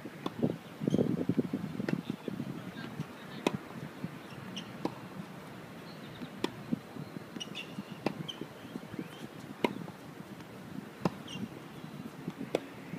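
Tennis balls struck with racquets in a rally on a hard court: sharp pops about every second and a half, some fainter than others.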